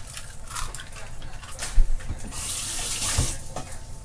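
Two eggs frying in oil in a non-stick pan, a light crackle throughout. About halfway through, a kitchen tap runs for about a second, with a knock just before and another near its end.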